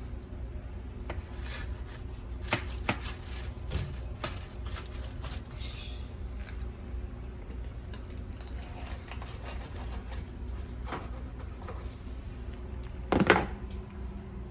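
Scattered light clicks and knocks of dishwasher parts being handled during cleaning, with one louder knock near the end, over a steady low hum.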